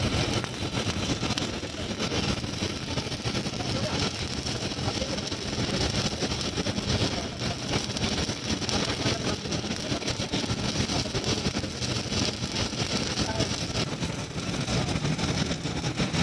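Stick-welding arc burning steadily on an overhead plate weld: a continuous dense crackle and sizzle from the electrode.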